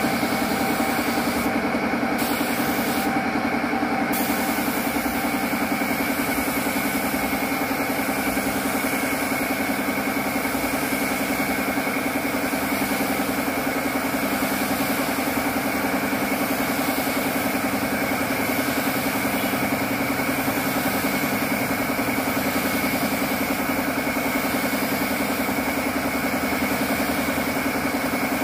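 Air compressor running steadily, with the hiss of a gravity-feed spray gun spraying red paint onto a motorcycle fuel tank.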